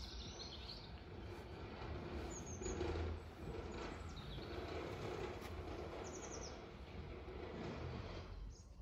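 Small birds giving short, high chirps now and then over a steady low background hum.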